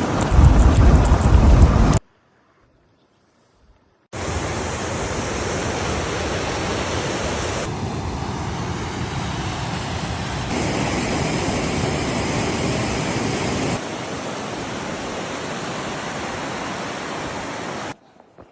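Wind buffeting the microphone for about two seconds, then a short break, then a string of steady rushing-noise clips that change abruptly at each cut.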